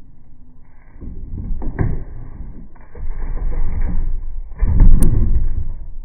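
Wind buffeting the microphone in irregular low gusts, with a heavier thump and a sharp click about five seconds in as the dog jumps down off the raised dog cot.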